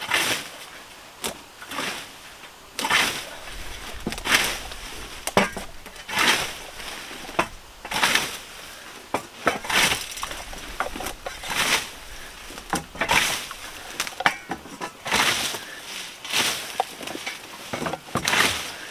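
Hand scythe swishing through tall weeds and grass, one short cutting stroke roughly every second.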